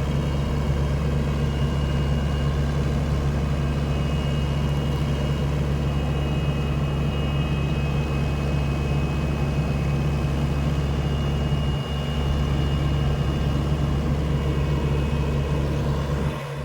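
SANY SY75C PRO excavator's diesel engine running steadily: an even, low drone with a faint high whine above it.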